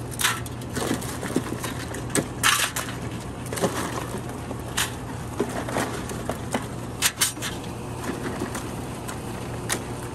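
Live blue crabs clattering as they are picked out of an ice chest and dropped into an aluminium boiling basket: irregular clicks, scrapes and knocks of shell on shell and on metal, over a steady low hum.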